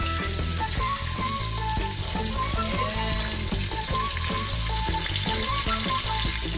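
Raw chicken pieces frying in hot oil with sautéed garlic and onion: a steady sizzle that holds evenly throughout, with background music underneath.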